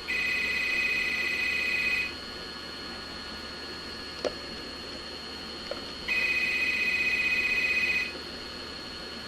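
A telephone ringing twice, each ring about two seconds long with about four seconds between, over a steady faint high whine. Two soft clicks fall in the gap between the rings.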